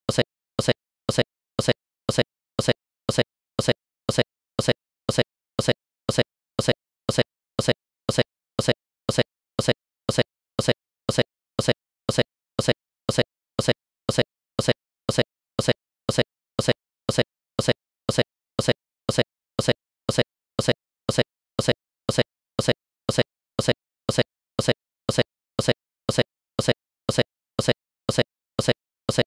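A short blip repeating evenly, about twice a second, with silence between each one.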